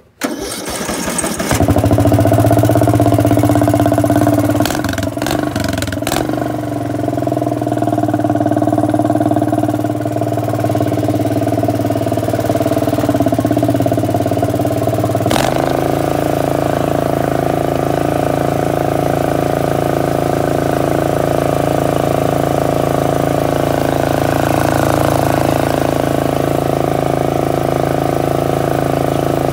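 Straight-piped engine of a Craftsman DLT 3000 garden tractor running loud and steady while the tractor is driven. The sound changes abruptly about halfway through, then holds steady again.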